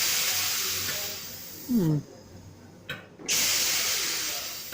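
Two sharp bursts of compressed air venting from a train's air system, each starting suddenly and fading over a second or two, with a short falling tone in between just before the second burst.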